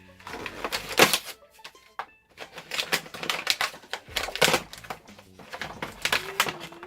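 Toy foam darts and their plastic packaging being gathered up by hand: irregular clicks and clatters in quick clusters.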